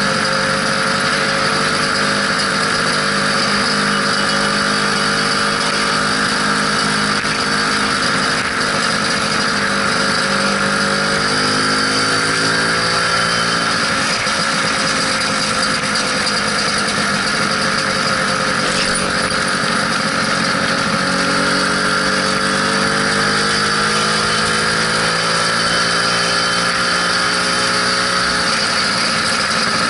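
Lambretta SX 200 scooter's two-stroke single-cylinder engine running steadily while riding, its pitch drifting gently up and down with the throttle, over a steady rushing hiss.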